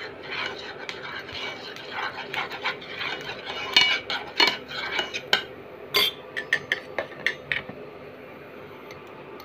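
Metal spoon scraping and clinking on a tawa and against a steel bowl: a run of irregular clinks and scrapes, the sharpest about four and six seconds in, stopping a little after seven and a half seconds.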